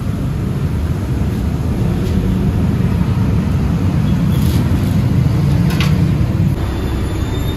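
Loud, steady low rumble of background noise, with two faint knocks about halfway through as a knife meets the wooden chopping block and the metal tray.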